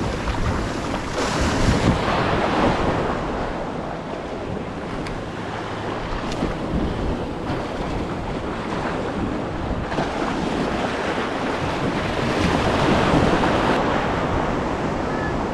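Ocean surf washing in over the shallows at the water's edge, with wind buffeting the microphone. The wash swells about two seconds in and again near the end.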